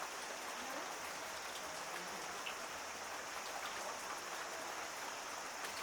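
Heavy rain falling steadily, a dense even hiss of many drops striking surfaces.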